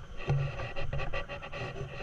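Wind rustling and buffeting against the microphone on a moving motor scooter, with the scooter's running and road noise underneath.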